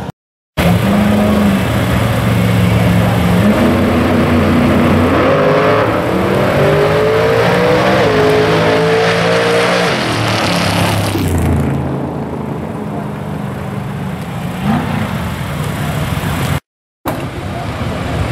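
A drag-racing car's engine at full throttle, launching and running down the strip. Its pitch climbs repeatedly, dipping briefly at each gear change, and it fades away after about ten seconds into a lower, steady engine rumble.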